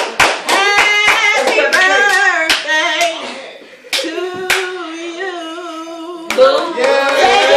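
People singing with hand clapping in time, about four claps a second at first. The clapping thins out, the singing dips briefly, then comes a long held note, and the singing grows louder near the end.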